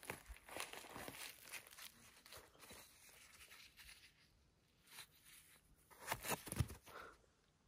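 Irregular crunching and rustling of dry forest floor litter, as from footsteps and hands working through it, with a quiet pause midway and a louder cluster of crunches near the end.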